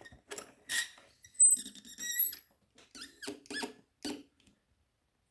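Several short, high squeaks and scrapes of a euro lock cylinder and its metal parts being handled and rubbed together, in separate strokes through the first four seconds.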